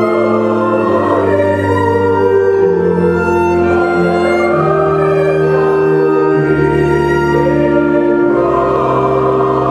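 Mixed church choir singing a hymn in long held chords, accompanied by organ and violin.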